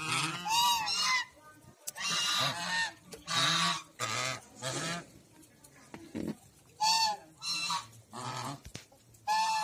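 A flock of domestic geese honking: about ten harsh, loud honks, one every second or so, some overlapping.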